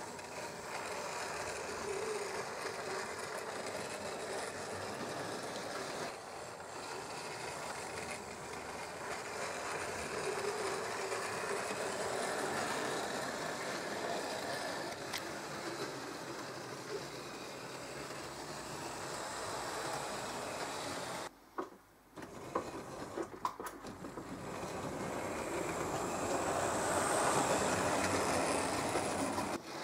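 H0-scale model train running: the motor of an SU42 diesel locomotive model, built on a Mehano 'Southern' loco, whirring as it hauls a double-deck coach, with the wheels running over the track. The sound is steady, briefly drops away about two-thirds of the way through, and is loudest near the end as the train passes close.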